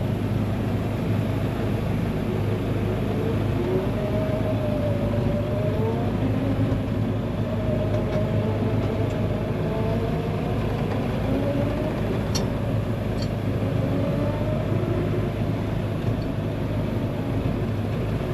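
Steady engine drone of a ULV mosquito fogger's small engine running while a vehicle drives slowly, with a pitch that wavers up and down.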